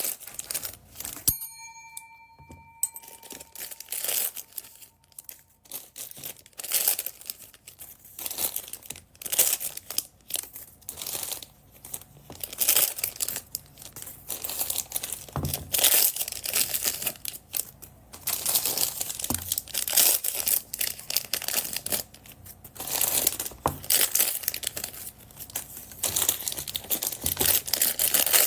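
Plastic bead packets crinkling and rustling as they are handled and opened by hand, in an irregular run of crackles. A brief ringing tone sounds about a second in and fades.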